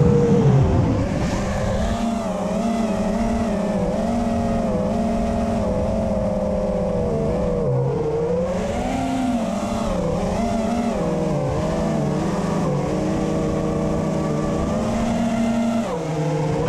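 Brushless motors and propellers of a 5-inch FPV racing quadcopter whining steadily in flight, the pitch wavering up and down with the throttle.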